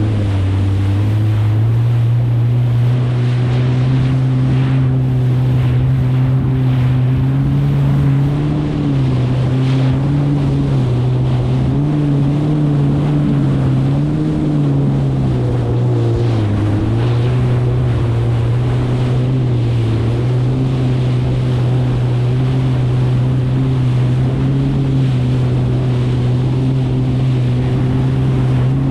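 Kawasaki STX 160X jet ski's four-stroke four-cylinder engine running steadily at cruising speed through chop, its pitch dipping briefly a few times, with water rush and wind noise on the microphone.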